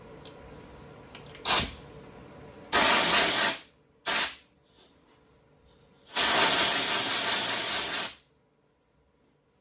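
Wire-feed welder arc on thin sheet-metal patches in a car firewall, in four bursts of steady hiss: two brief tacks and two longer welds of about one and two seconds, stopping suddenly each time.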